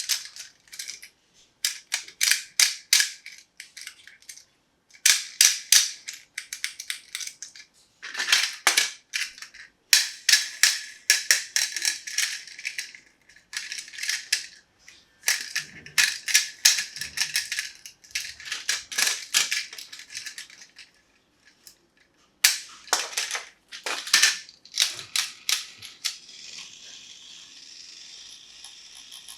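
Small plastic toy parts clicking and clattering in quick, irregular clusters as they are handled. A steady faint hiss takes over near the end.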